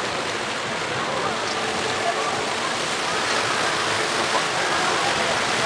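Steady rush of water from fountain jets spraying and falling back into a lagoon.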